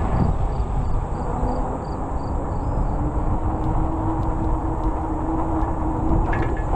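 Wind rushing over the microphone and tyre rumble while riding a fat-tire e-bike, with a steady hum coming in about three seconds in and stopping near the end.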